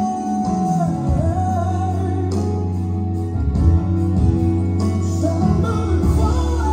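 Recorded gospel music: a slow song with sustained low bass notes under a wavering sung melody.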